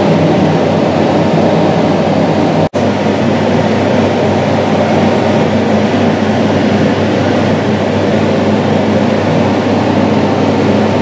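Steady mechanical hum and rumble inside an enclosed amusement-ride cabin as it rises and turns. The sound cuts out for an instant about three seconds in.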